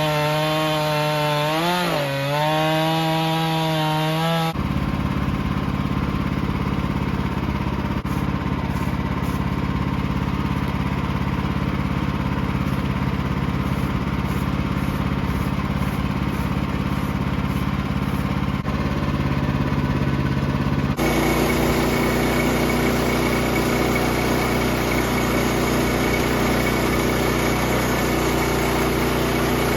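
Small gasoline engines heard in a series of cut-together clips. First a chainsaw's pitch dips and recovers as it bogs under load in the wood. About four seconds in, this cuts to a steady engine running at an even pitch, and there is another cut to a different steady engine sound about two-thirds of the way through.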